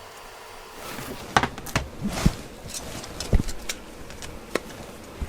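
Handling noises on a workbench: a string of light, irregular clicks and knocks, as of tools and a phone being picked up and set down.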